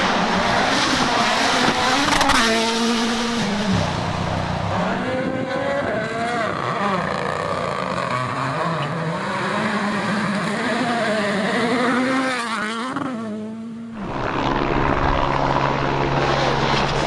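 Rally car engine running hard, its pitch rising and falling again and again as it revs through the gears. About 14 s in, the sound cuts abruptly to a steadier engine note.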